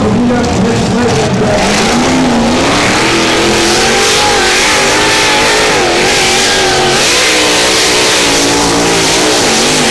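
Engine of a 950 kg modified-class pulling tractor running at full throttle under load while dragging the weight-transfer sled. Its pitch climbs about a second and a half in, then stays high and wavers as it pulls.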